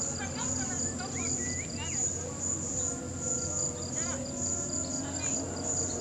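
Chorus of tropical insects, crickets or cicadas, keeping up a steady high-pitched trill that pulses about twice a second, with a second insect ticking rapidly at a slightly lower pitch that drops out for a few seconds in the middle.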